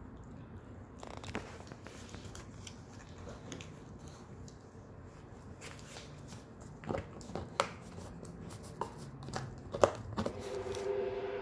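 Shetland sheepdog gnawing a cow horn chew: teeth scraping and crunching on the horn, with irregular sharp clicks and cracks, the loudest a little before the end.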